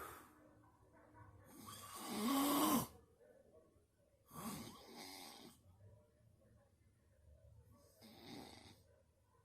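A sleeping person snoring, three breaths about three seconds apart, the loudest about two seconds in.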